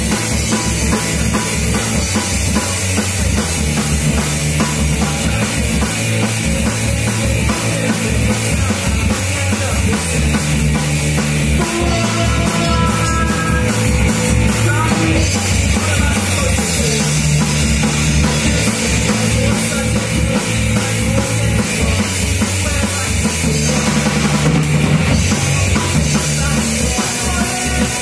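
Live rock band playing loud: drum kit, electric bass and electric guitar.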